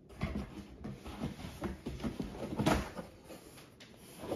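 Rummaging and handling noises, irregular knocks and rustling, with one louder knock about two and a half seconds in, as beer cans are handled and taken out of their cardboard shipping box.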